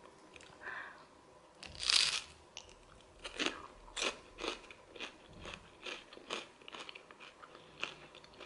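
Biting into a crispbread topped with egg salad, with a loud crunching bite about two seconds in, then crunchy chewing at about two chews a second.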